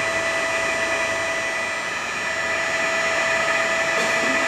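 Ooya radial arm drill's geared spindle head running free at 325 RPM: a steady machine whine made of several held tones. There is a light click near the end.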